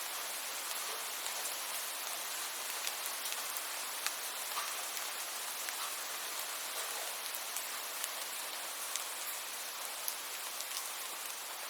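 Steady rain falling: an even hiss with scattered sharp ticks of individual drops striking a surface.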